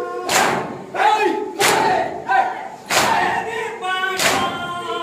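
A crowd of Shia mourners doing matam: many hands striking chests together, four strokes about 1.3 s apart, with voices chanting a lament (nauha) between the strikes.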